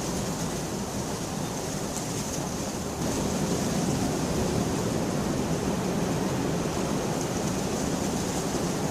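Steady rain, an even continuous hiss. About three seconds in it grows louder and fuller in the low range.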